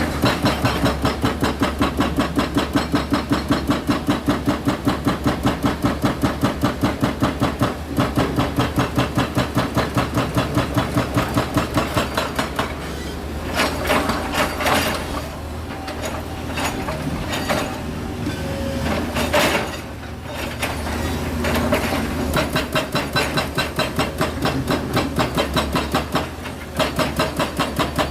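Heavy machinery clanking in a fast, even rhythm of about four beats a second. The rhythm breaks off in the middle for several seconds of irregular knocks and clatter, then starts again.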